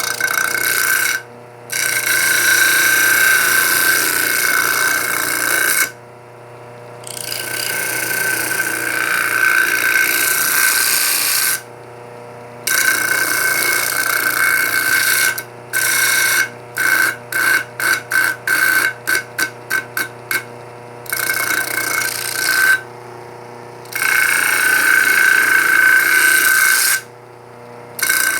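Steel knife blade pressed against a grinding wheel driven by a washing-machine motor, grinding with a rasping, ringing sound over the motor's steady hum. Several long passes of a few seconds each, with a run of short quick touches, about two a second, in the middle.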